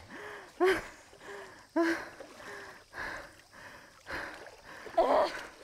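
Shallow water sloshing and splashing as people wade and grab at fish by hand, over running stream water, with short loud events about once a second. Some of these carry short voice-like grunts of effort.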